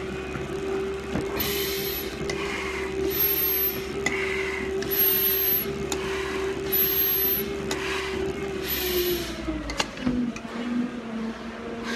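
Hard, heavy breathing through an SCBA face mask, a hissing breath about every two seconds from a firefighter tired deep into a stair climb. Under it a steady machine hum, likely the stair-climbing machine's motor, drops in pitch about nine seconds in.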